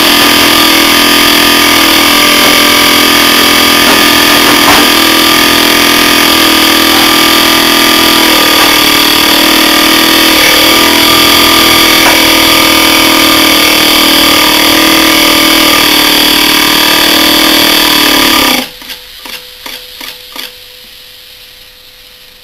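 Bulkon hermetic refrigerant compressor, its shell cut open, running loudly and steadily while being run dry without oil to destroy it. About 18 seconds in it stops abruptly, followed by a few short knocks and a faint steady hum.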